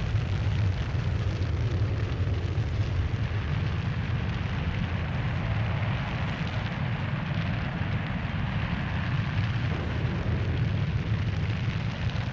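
Space Shuttle launch: the solid rocket boosters and main engines make a steady, deep rumble with a noisy hiss above it.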